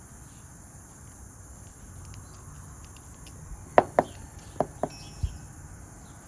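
Light, sharp clicks of small metal lock-cylinder parts being handled, about five in a second and a half, with fainter ticks just before.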